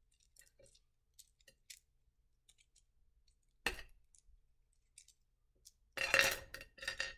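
Rough black opal pieces clicking and clinking together as they are handled, with one sharp clink a little after halfway. Near the end comes a louder rattle of clinks as the stones are dropped back into the dish.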